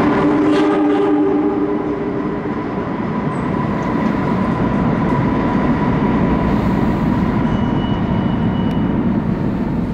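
R77E electric locomotives of a subway work train pulling away through the tunnel: a horn chord sounds for about a second and a half at the start, then the steady heavy rumble of wheels on rail with a thin steady whine.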